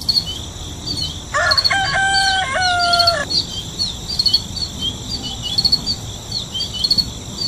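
A rooster crows once, a long call of about two seconds, a little over a second in, over small birds chirping continually throughout.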